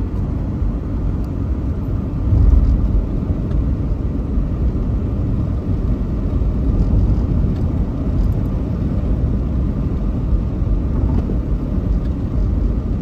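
Road noise inside a moving car's cabin: a steady low rumble of tyres and engine, with a brief louder low surge about two and a half seconds in.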